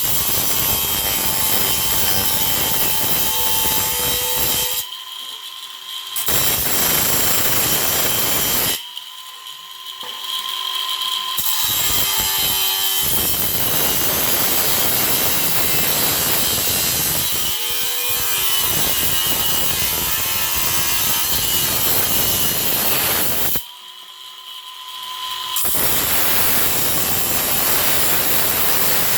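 Small grinder cutting through the sheet-metal bottom of an air-conditioning flange: a loud, harsh grinding over the steady whine of the motor. Three times it comes off the cut for a second or two and only the free-spinning whine is left.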